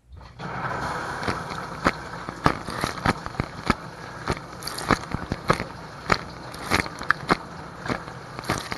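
Whirlpool dishwasher's wash cycle spraying water inside the tub, heard through a camera sealed in a plastic bag: a sudden start into a steady rush, with sharp irregular knocks and splats about twice a second.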